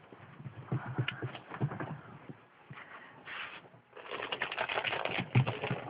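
Poodle scrabbling and playing with its toys: quick clicking and scuffling in two spells, the second, starting about four seconds in, the louder.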